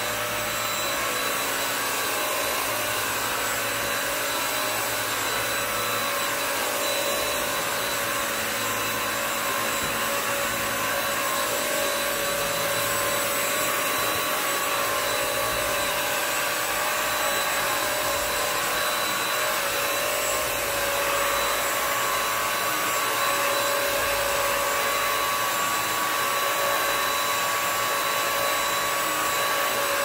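Bissell CrossWave Pet Pro wet-dry vacuum and mop running while it is pushed across a hard floor: a steady motor whine over a rushing hiss of suction and brush roll, holding the same pitch and level throughout.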